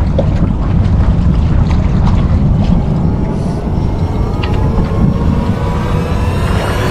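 A motorboat engine running over a steady low rumble. Its whine rises in pitch over the last few seconds.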